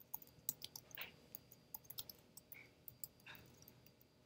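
Computer keyboard being typed on: a quick, irregular run of faint key clicks as a sentence is typed out.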